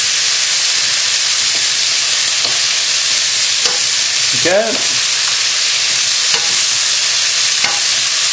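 Vegetables sizzling in a smoking-hot oiled frying pan as a wooden spatula keeps stirring and tossing them: a steady, even frying hiss.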